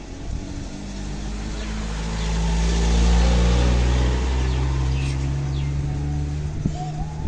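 A motor vehicle's engine passing by, swelling to its loudest about three seconds in and then slowly fading, its low hum shifting in pitch.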